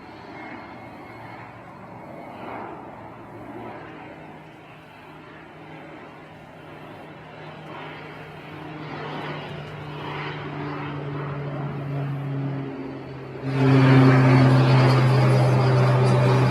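Crop-dusting airplane's propeller engine droning at a steady pitch, growing gradually louder as it comes in, then jumping suddenly much louder near the end.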